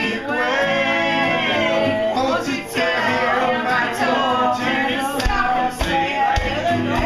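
A small group of women and a man singing together without words anyone could make out, in long, drawn-out, wavering notes.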